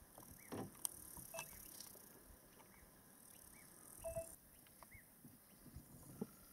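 Faint bush ambience: scattered soft rustles and clicks, with a short high chirp repeating about once a second.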